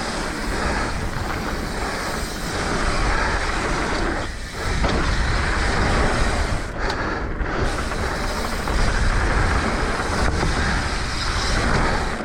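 Wind rushing over an action camera's microphone and knobby tyres rolling and rattling over a dirt trail as a mountain bike descends at speed. The noise dips briefly about four and a half seconds in.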